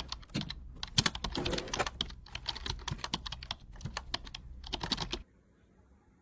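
Rapid, irregular light clicks and taps of plastic items being handled while a fridge is organized. The clicking stops about five seconds in.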